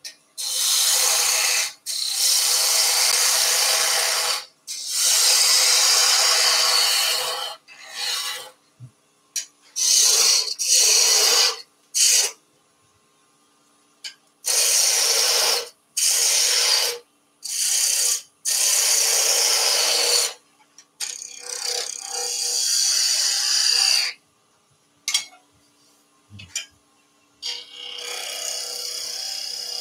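Woodturning tool cutting a spinning wooden blank on a lathe as it is shaped into an egg: a run of shearing, hissing cuts, each lasting up to a few seconds, with short quiet pauses between them and a faint lathe hum underneath. Near the end a softer, steadier cut runs on.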